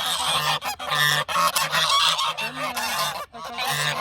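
Several domestic geese honking loudly and almost without pause, their calls overlapping.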